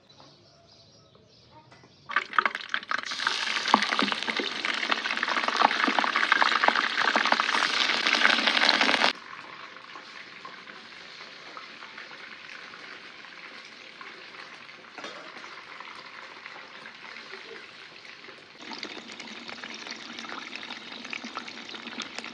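Food frying in hot oil in a pan, a dense sizzle with crackles. It starts about two seconds in, drops abruptly to a quieter, steadier sizzle about nine seconds in, and grows louder again near the end.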